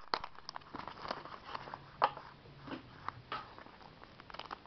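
Hockey trading cards being handled and shuffled by hand: an irregular run of light clicks and rustles as the cards slide and flick against each other, the sharpest about two seconds in.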